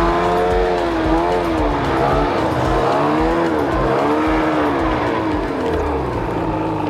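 Snowmobile engine running as the machine rides up close over the snow, its pitch rising and falling repeatedly with the throttle.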